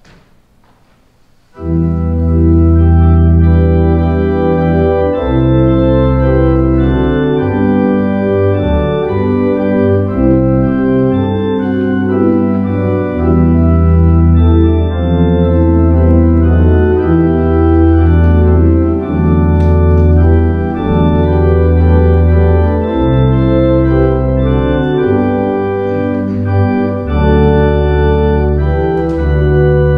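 Organ playing slow sustained chords over a deep bass line, starting about a second and a half in.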